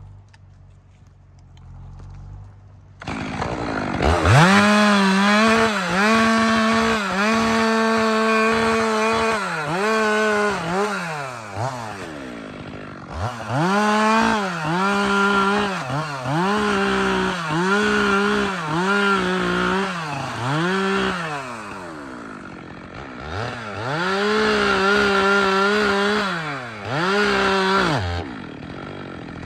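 Stihl MS 462 C two-stroke chainsaw cutting wood: about three seconds in it revs up to full throttle and holds there in three long stretches. The revs dip and recover again and again under the cut, and it drops back briefly toward idle between stretches.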